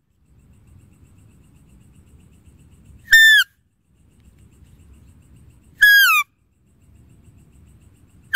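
Deer call: a short, loud, high whistled bleat with a falling end, repeated twice about 2.7 s apart, with a third starting at the end, over a faint low background rumble.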